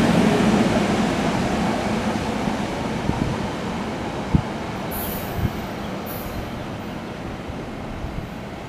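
Four-car SEPTA Silverliner IV electric multiple-unit commuter train pulling away and receding down the track, its running noise fading steadily. Two brief thumps come about four and five seconds in.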